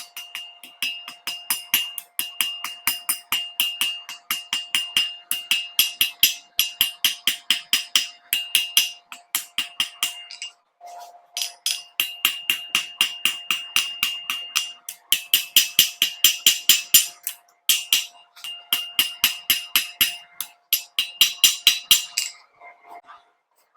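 Rapid hammer blows on hot Damascus steel over an anvil, about four or five a second, each with a bright anvil ring, coming in runs with short pauses about 11 and 18 seconds in and stopping near the end. A steady forge hum runs underneath, carrying on through the pauses.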